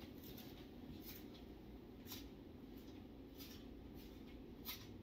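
Near silence: room tone with a few faint, short ticks, roughly one a second.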